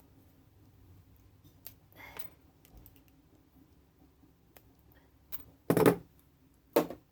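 Small clicks and taps of scrap pieces being handled, then two short, louder clatters near the end.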